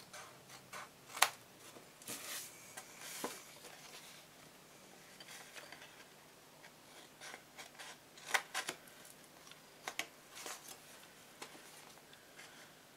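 Small scissors snipping patterned scrapbook paper, cutting angled tabs: irregular short snips with paper rustling between them, the sharpest snip about a second in.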